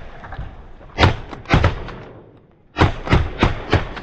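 Shotguns from several hunters firing at geese in a ragged volley: two blasts about a second in, then four more in quick succession near the end.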